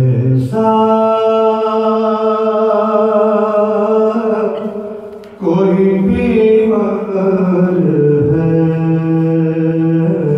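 A man chants an Urdu elegiac poem solo through a microphone, with no instruments. He holds two long melodic phrases, takes a short breath between them, and the second phrase steps down in pitch near the end.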